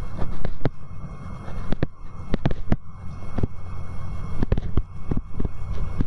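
Stylus tapping and scraping on a tablet screen while handwriting: irregular sharp clicks several times a second, over a steady low rumble from the microphone.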